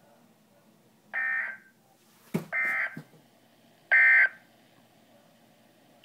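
Three short electronic beeps from a weather radio receiver, each about half a second long and about a second and a half apart, with a couple of soft knocks around the second beep.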